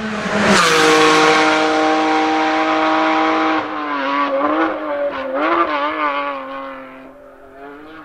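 Porsche 718 Cayman GT4's naturally aspirated flat-six passing close at high revs, the pitch dropping as it goes by, then holding a steady high note. A little over halfway it lifts off and blips through several downshifts under braking, then fades away.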